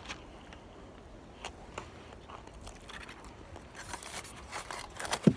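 Small crunches, clicks and rustles of a picnic lunch being handled and eaten, denser near the end, with one louder knock just before it ends.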